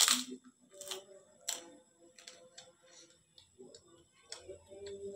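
A loud crunch as teeth bite into a crisp cracker right at the start, followed by smaller, irregular crunching clicks of chewing.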